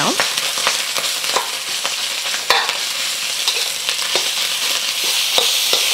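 Ground pork sizzling in a hot steel wok while a metal wok spatula scrapes and knocks against the pan, breaking up the seared meat; a sharper knock comes about halfway through.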